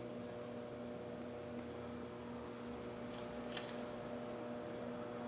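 Steady electrical hum of a few even tones, with a couple of faint clicks.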